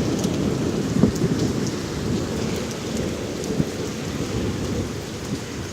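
Heavy rain pouring steadily during a thunderstorm, with a low rumble underneath and scattered drops ticking.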